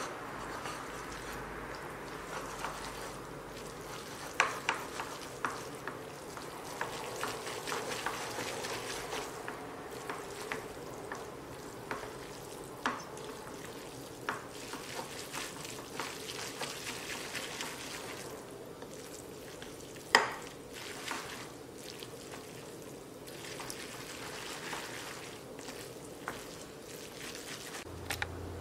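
Chopsticks tossing instant bibimmyeon noodles with red chili sauce in a ceramic bowl: a wet, sticky stirring, broken by scattered sharp clicks of the chopsticks knocking the bowl, the loudest about two-thirds of the way through.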